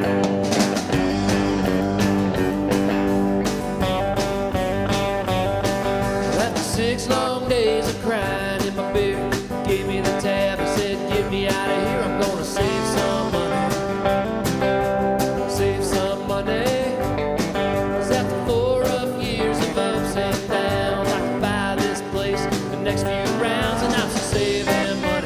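Background music: a country-style song with guitar and singing.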